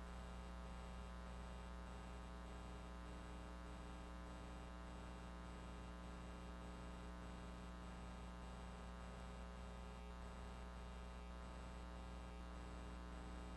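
Faint, steady electrical mains hum with many even overtones in a broadcast audio feed, unchanging throughout.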